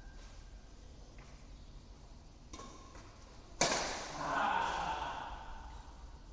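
Badminton rally in an echoing hall: a couple of faint shuttlecock hits, then a sharp, loud racket strike on the shuttlecock about three and a half seconds in that rings in the room, followed by a brief shout.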